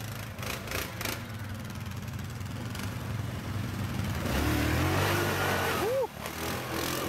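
Yamaha Grizzly ATV engine working under load in deep mud, revving harder and louder from about four seconds in, then dropping off suddenly about six seconds in.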